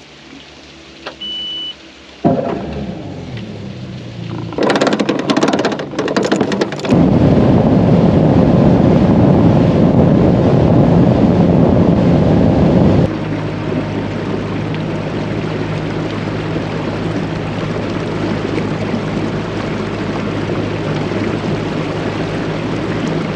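Motorboat's outboard engine running under way, with wind and water noise. A short high beep about a second in; a loud rush of wind and water from about seven to thirteen seconds, then a steady engine drone.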